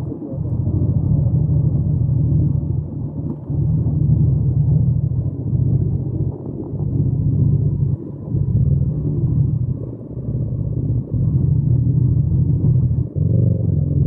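Yamaha MT-07's 689 cc parallel-twin engine running under way, a deep rumble that swells and falls back with short dips every second or two.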